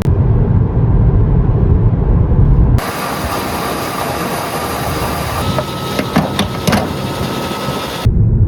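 Deep, steady road rumble of a car on the move. For about five seconds in the middle it cuts to a brighter, even hiss with a few sharp clicks and a faint steady tone, then the rumble returns.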